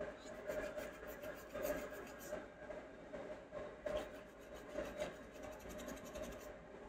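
Toothbrush bristles scrubbing flux residue off the solder pads of a phone circuit board: a faint, uneven scratchy scrubbing made of many short strokes.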